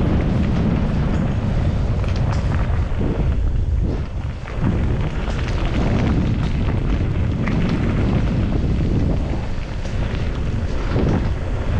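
Ride noise from a downhill mountain bike on the trail: wind buffeting the camera microphone as a heavy low rumble, with knocks and rattles from the bike over bumps. The rumble drops briefly about four seconds in.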